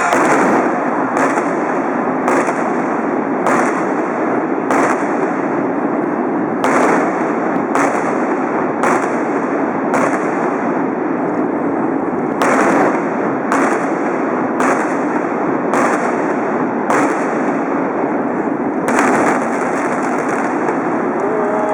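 Victory fireworks going off in a rapid series of sharp bangs, roughly one a second, over a steady background roar.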